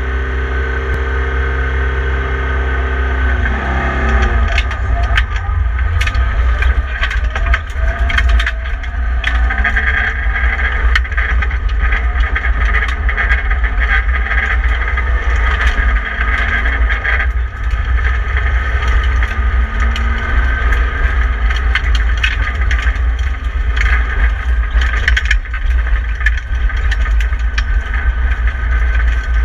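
BMW 318i E30 rally car's four-cylinder engine, heard from inside the cabin: held at steady revs for the first few seconds, then the car launches at about four seconds and runs hard on a gravel stage, revs rising and falling. Gravel and stones clatter against the underbody in many sharp ticks.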